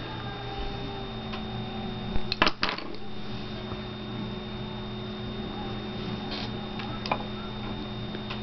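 Low steady electrical hum, broken by a quick cluster of clacks about two and a half seconds in and a single click about seven seconds in, from paintbrushes being handled and set down on the palette table.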